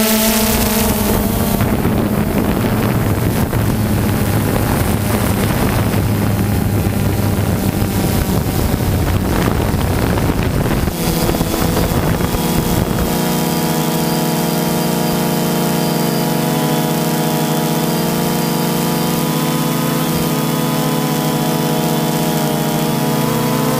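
DJI Phantom 2 quadcopter's motors and propellers humming in flight, picked up by the onboard camera. For roughly the first half a rough rushing noise covers the hum; then it settles into a steady whine of several held tones.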